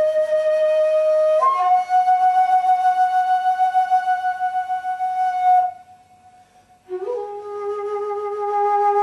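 Music: a single wind instrument playing long held notes. The second note wavers with vibrato, then comes a brief pause about six seconds in, and then a lower sustained note.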